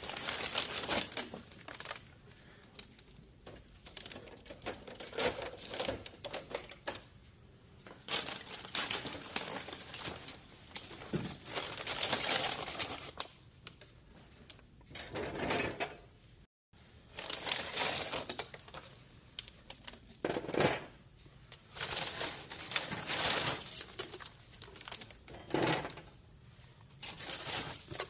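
Snack packages and products being handled and loaded into a vending machine: irregular crinkling wrapper rustles, clicks and light clatter, coming in bursts with short pauses between.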